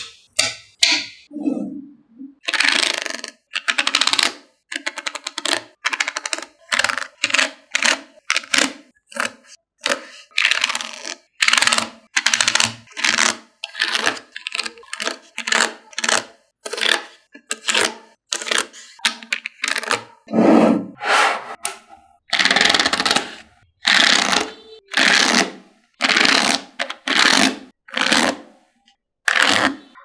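Small neodymium magnetic balls clicking and rattling against each other in quick repeated bursts, as layers of them are pried apart with a plastic card and snapped back together.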